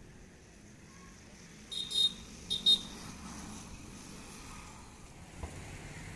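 Two short, shrill, rattling chirps about two seconds in, over a faint steady background hum.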